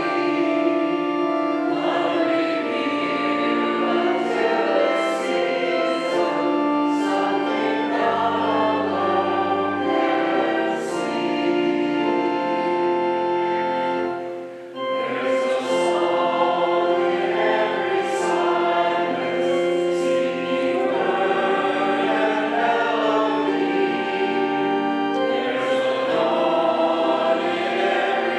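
Church congregation singing a hymn together over held chord accompaniment, ending one verse and, after a short break about fourteen seconds in, starting the next.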